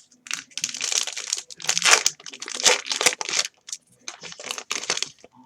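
Crinkling and rustling of a hockey trading-card pack wrapper being handled and opened, in a run of irregular bursts that are loudest in the first few seconds.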